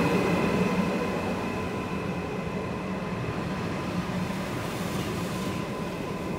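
Trenord Caravaggio double-deck electric train moving slowly along the platform: a steady high electric whine over the rumble of its wheels.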